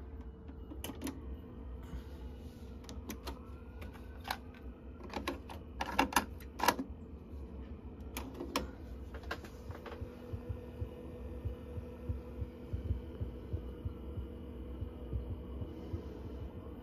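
Sansui D-59M cassette deck's transport keys pressed several times, the mechanism answering with a cluster of sharp clicks and clunks, loudest about six to seven seconds in. Under it and after it there is a low steady hum with a faint throb.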